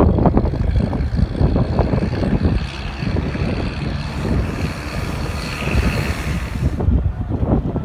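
A vehicle engine rumbling under heavy wind buffeting on the microphone. A hissing rush rises about four seconds in and cuts off suddenly near seven seconds.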